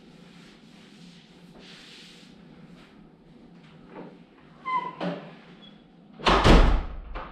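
Faint swishing of a mop on a tiled floor, then a short squeak and a door slamming shut about six seconds in, followed by a smaller click.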